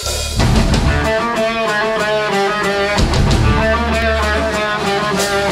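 Live rock band playing: an electric guitar riff over bass guitar and drums, the whole band coming in together right at the start.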